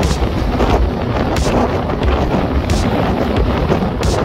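Strong sea wind buffeting the microphone: a loud, steady rumbling rush, with breaking surf from a rough sea mixed in.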